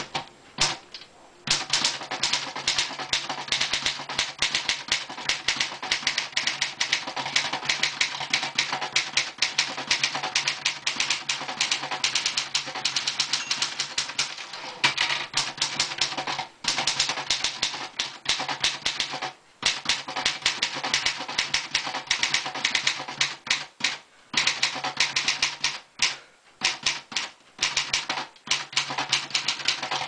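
1968 Commodore 2200 portable manual typewriter being typed on briskly: a rapid, uneven run of sharp key and typebar strikes on the paper. The typing starts about a second and a half in and has a few brief pauses.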